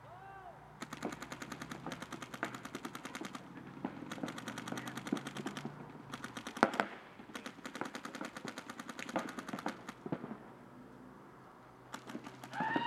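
Paintball markers firing rapid, evenly spaced strings of shots, several strings broken by short pauses, during a point in play.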